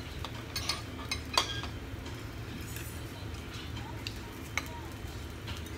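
Eating utensils clinking against plates and dishes at a meal: a few sharp, scattered clinks, the loudest about a second and a half in, over a steady low hum.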